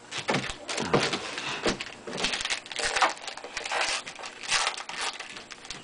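Rustling and crinkling of trading-card packaging and cards being handled, in irregular crackly bursts.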